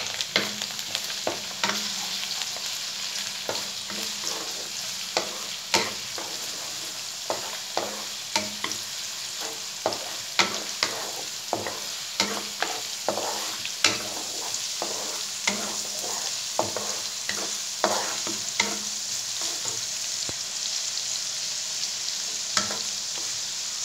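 Minced garlic and chopped red onion sizzling in hot oil in a wok, with a wooden spatula stirring and knocking against the pan many times at an irregular pace.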